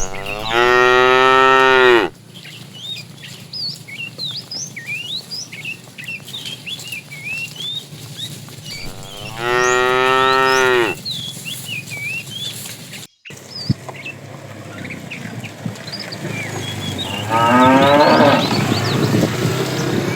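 Cattle mooing: three long moos, one at the start, one about halfway and one near the end, the last rougher and rising in pitch. Small birds chirp throughout.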